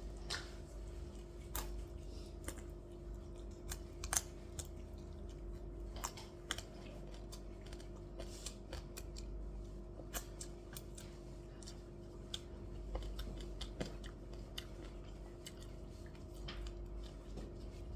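Irregular clicks and taps of a meal being eaten, utensils knocking on dishes and crunchy fried food being bitten, over a steady low hum.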